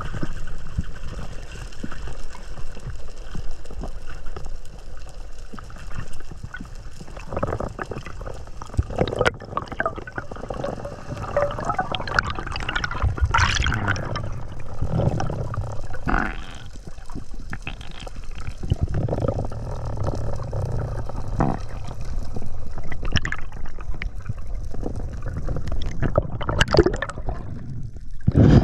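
Water sloshing and gurgling around a spearfisher's camera, with irregular splashes and knocks.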